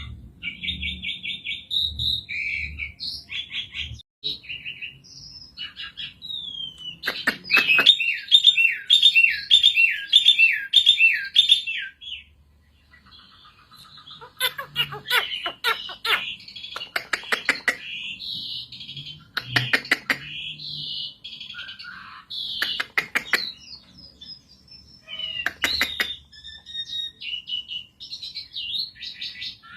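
Asian pied starling (Gracupica contra) singing a long, varied song of whistles, chatter and harsh clicking notes, with a fast run of repeated falling notes about seven seconds in.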